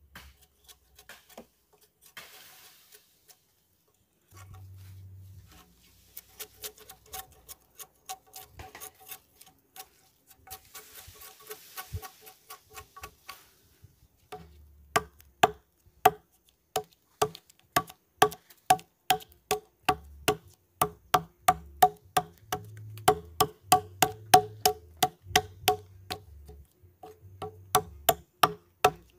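Repeated strikes on wood, each a sharp knock with a short ringing tone. They are sparse and faint at first, then become a steady, louder run of about two strikes a second from about halfway through, as when chopping or hammering wood.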